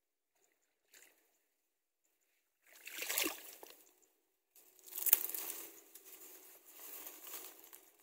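Dry reeds and nest grass rustling and crackling in bursts: a faint tick about a second in, a louder burst around three seconds, then a longer rustle through the rest.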